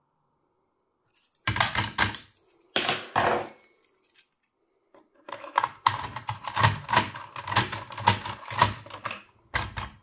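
Fiam Iseo 6+6 lever mortise lock being worked with a lockpick: rapid metallic clicking and rattling of the levers and bolt mechanism. It comes in two short bursts, then a longer run of quick clicks from about halfway through as the lock is turned and its bolts are thrown.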